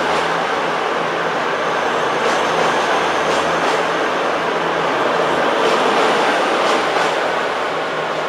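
Class 222 Meridian diesel multiple unit pulling out, its underfloor diesel engines running with a steady drone over the rumble of the train moving. A few faint clicks come at irregular intervals.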